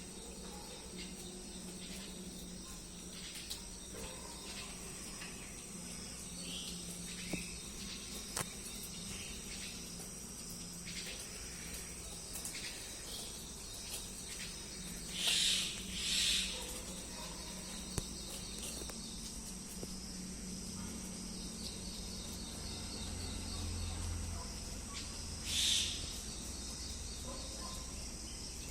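Steady high-pitched insect trilling, typical of crickets, over a low hum and scattered faint clicks. Three short, louder hissing bursts break in: two close together about halfway through and one near the end.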